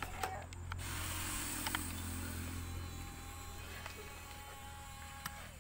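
A low, steady engine-like hum that eases off about three seconds in, with a few light clicks and knocks over it.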